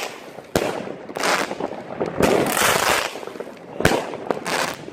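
Weco Beastmaster firework battery firing: shots go off a second or so apart, sharp cracks mixed with longer rushing, crackling bursts.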